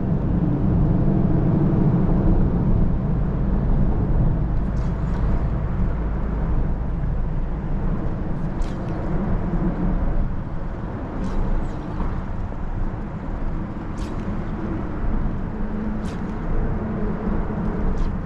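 Steady low rumble, strongest in the first few seconds and easing after that, with a few faint ticks.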